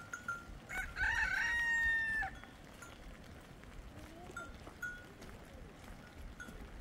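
A rooster crows once, about a second in: a rising start, then a held note for about a second and a half. Short high bird chirps repeat throughout.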